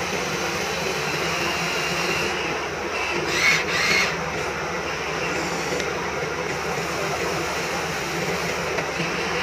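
Remote-control toy excavator's small electric motors and gearboxes whirring steadily as its arm and bucket move, with a brief louder burst about three and a half seconds in.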